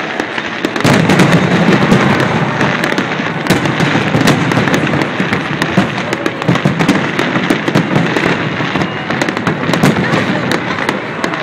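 A fireworks display at full barrage: many shell bursts booming and crackling over one another without a break, getting louder about a second in.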